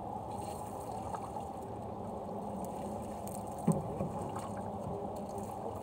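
Wet fishing net being hauled in over the side of a small boat, water trickling off it, with two sharp knocks against the boat a little past halfway.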